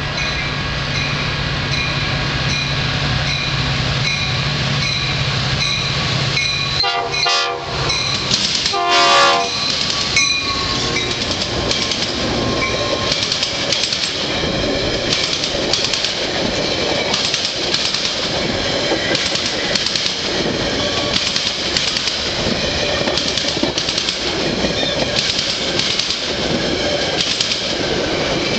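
Metra commuter train approaching and passing close by, its P5 air horn sounding, really loud, over the first several seconds. The locomotive goes by about seven to ten seconds in, then the passenger cars rush past with a rhythmic clickety-clack of wheels over rail joints.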